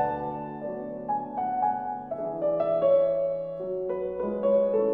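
Background piano music: a melody of single notes moving over held lower notes.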